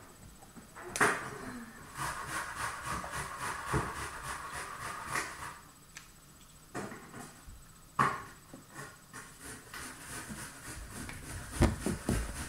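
Handling noise from plastic water bottles: a few sharp clicks and knocks with soft rubbing between them.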